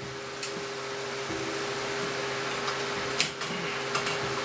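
Shrimp sautéing in a skillet on a gas stove: a steady sizzling hiss, with a steady hum underneath and a few light clicks.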